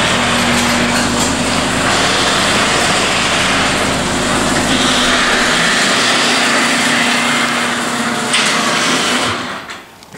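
Electric garage door opener running as the door goes up, a steady motor hum with chain-drive rattle, a knock a little over eight seconds in, then the motor cutting off suddenly about nine and a half seconds in.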